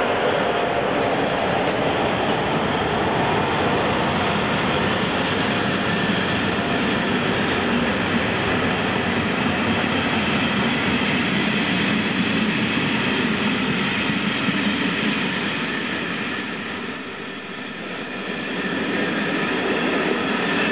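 Czech Railways passenger coaches rolling past as the train gathers speed out of the station: a steady rumble and hiss of wheels on rail. The sound dips briefly near the end, then comes back up.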